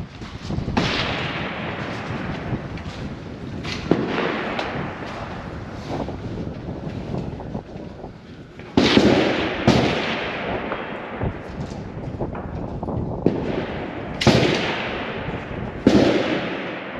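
Precision rifle shots during a timed stage: about six loud cracks at uneven intervals, each trailing off in a long echo, with two coming about a second apart near the middle.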